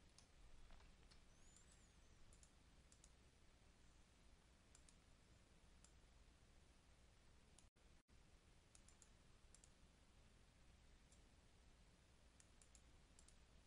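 Near silence with faint, scattered computer mouse clicks.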